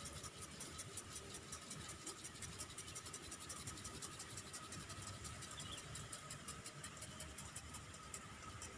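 Sprinklers watering a grass football pitch: a faint hiss of spray with rapid, uneven ticking, over a low rumble.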